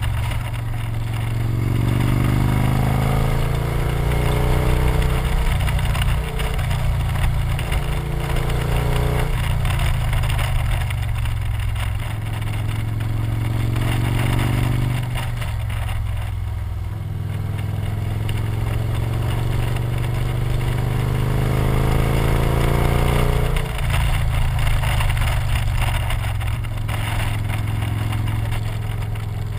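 Victory motorcycle's V-twin engine pulling up a winding mountain road, rising in pitch several times as the throttle is opened and dropping back as the rider eases off, under a steady rush of wind over the bike.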